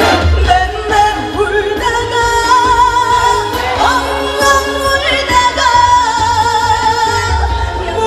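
Female trot singer singing live into a handheld microphone over a band backing track through the stage PA, her sustained notes wavering with vibrato over a steady bass line.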